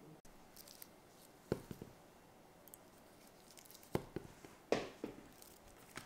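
Cherry tomatoes dropped into a glass bowl of water: several separate plops and small splashes, the loudest about halfway through and near the end.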